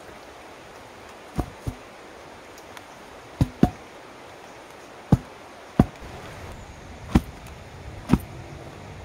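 A long bamboo pole being lifted and rammed down into a dug hole in earth to set it as a post: eight dull thuds, several in quick pairs, a few with a short ring after them.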